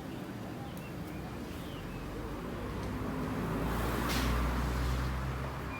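A motor vehicle passes close by: engine rumble and road noise build up, peak about four seconds in, then fall away near the end.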